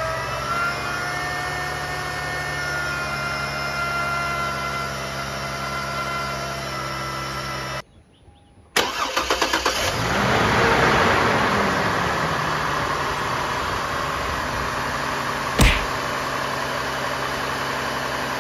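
A 2004 Chevrolet Trailblazer's 4.2-litre Vortec straight-six running with a loud, steady high whine from the worn bearing of its old AC compressor. After a break of about a second the engine cranks, starts, revs briefly and settles to a quiet idle with the whine gone, a new compressor and pulley fitted. One sharp knock comes near the end.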